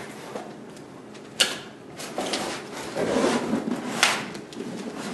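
Corrugated cardboard gift box being folded shut and handled: cardboard flaps scraping and rubbing, with a few sharp knocks as the box is pressed and turned.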